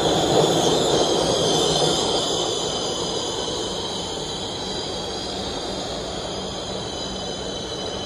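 New York City subway train of R62A cars pulling into the station and slowing. Its rumble eases over the first few seconds under a steady high-pitched squeal.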